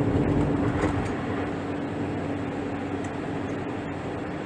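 Steady engine and road noise inside a camper van's cabin while it drives along a highway. A steady hum runs under it and fades out after about three seconds.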